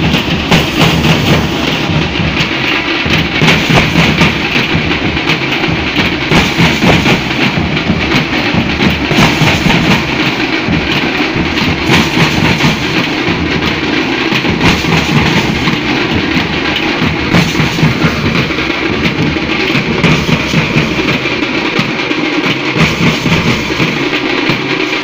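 A troupe of Nasik dhol drummers beating large barrel drums in unison with sticks, playing a loud, dense, driving rhythm that does not stop.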